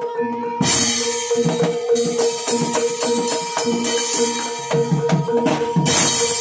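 Percussion-led music for a Javanese barongan dance: steady drum beats over a held tone, with a loud crash about half a second in and another near the end.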